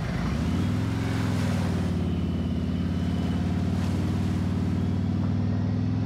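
Harley-Davidson Road King's V-twin engine running at a steady pace as the motorcycle rides along the road, with light wind and road noise.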